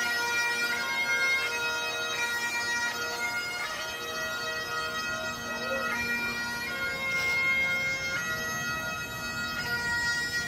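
Bagpipes playing a melody over their steady drones, the chanter stepping from note to note every second or so.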